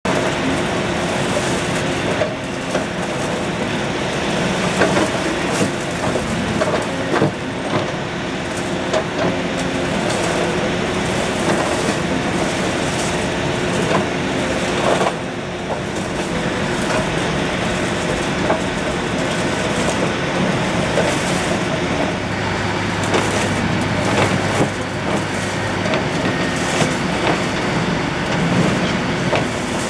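Hyundai HX300L tracked excavator's diesel engine running steadily under load, with frequent knocks and clatter of broken concrete and brick as its grapple digs into and sorts a rubble pile.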